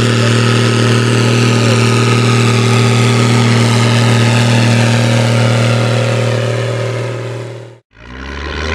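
Case IH 1455 XL tractor's six-cylinder diesel running hard through a stainless straight-pipe exhaust, pulling a subsoiler deep in the ground. The engine note stays loud and steady, fades out to silence shortly before the end, then comes back with its pitch rising.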